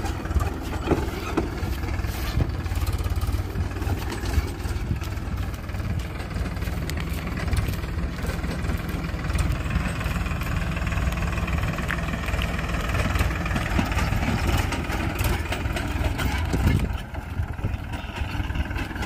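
Powertrac Euro 50 tractor's diesel engine running steadily under load while it drives a rotavator through dry soil. The level dips briefly near the end.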